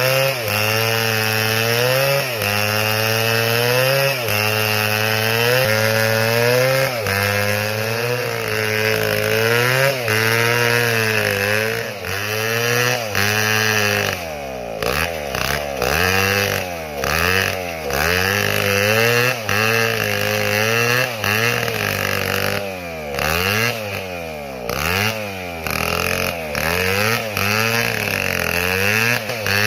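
Stihl MS 720 two-stroke chainsaw cutting wood, the engine pitch dipping and recovering under load. From about halfway on, the revs swing up and down every second or so.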